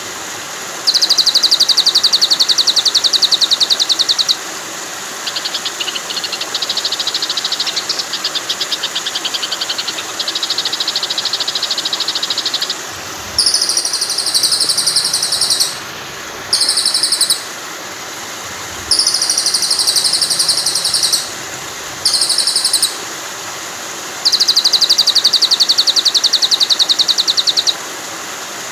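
Songbird filler song for a white-rumped shama training track: about eight rapid, high-pitched buzzing trills of one to three seconds each, separated by short gaps, over a steady rush of flowing water.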